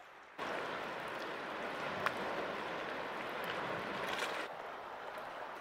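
Steady outdoor rushing noise that starts abruptly, with one sharp click about two seconds in and a slight drop in level a little past the middle.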